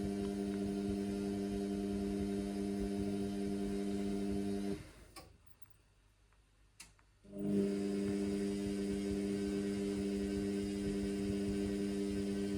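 Indesit washing machine's motor humming steadily as it turns the drum on a synthetics wash. About five seconds in it stops for roughly two and a half seconds, with two faint clicks, then starts up again: the pause between the drum's tumbling turns.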